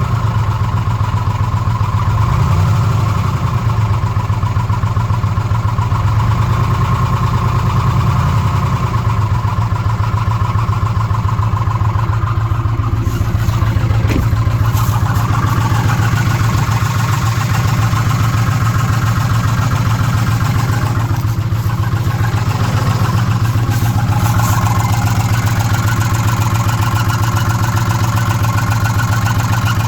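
Ford F-150's 5.4-litre V8 idling steadily, the engine that is throwing a P0016 cam/crank correlation code and making noise on bank 1.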